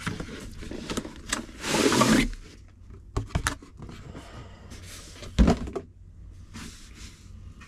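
Packaging being handled and opened: scattered clicks and knocks, a brief sliding scrape about two seconds in, and a single thump a little past five seconds.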